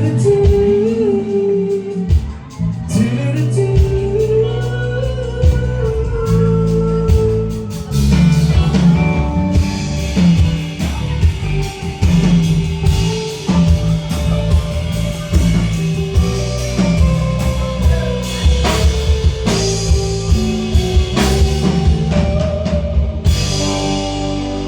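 Live band playing a rock song: drum kit and guitar, with some singing.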